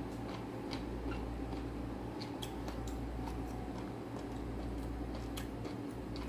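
Eating sounds: soft, irregular clicks of chewing and mouth noises, over a steady low hum.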